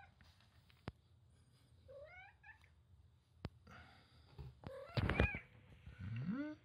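Domestic cats meowing: a short rising-and-falling meow about two seconds in, another call about five seconds in, and a low rising meow near the end. A few sharp clicks and knocks, loudest about five seconds in.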